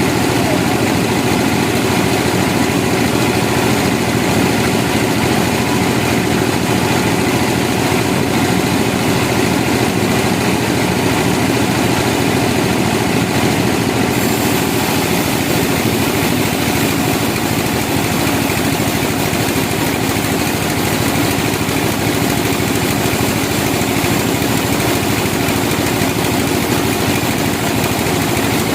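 Sawmill machinery running steadily.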